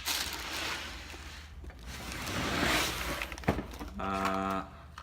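Rustling handling noise as the contents of an airsoft rifle box are taken out and moved about, swelling a little past the middle. A sharp click follows about three and a half seconds in, then a short steady hum near the end.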